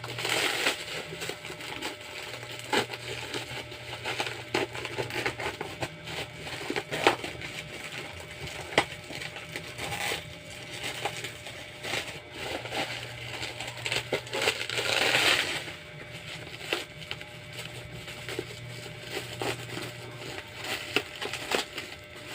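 Cardboard shipping box being opened by hand: crackling and crunching cardboard and packing, scattered sharp clicks and knocks, and louder tearing bursts about half a second in and again around fifteen seconds in.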